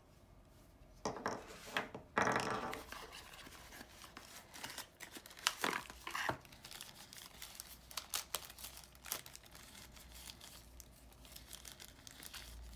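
Clear plastic packaging bag crinkling and rustling as a coiled USB-C cable is pulled out of it, with scattered clicks and rustles from handling the cable and cardboard box. The loudest crinkles come about a second in and again around six seconds in.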